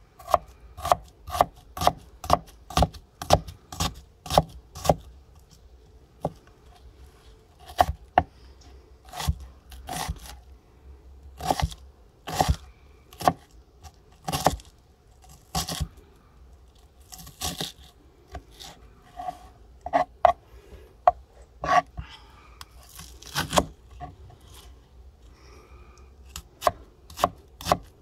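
Mora Bushcraft Black knife chopping an onion on a wooden cutting board: the blade cuts through the onion and knocks sharply on the board, in runs of about two strokes a second with irregular pauses between.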